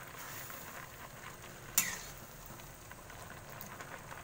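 Rice vermicelli bubbling in boiling water in a wok, stirred with a metal spatula, with a steady hiss of bubbling water. About two seconds in the spatula knocks against the wok once with a sharp clink.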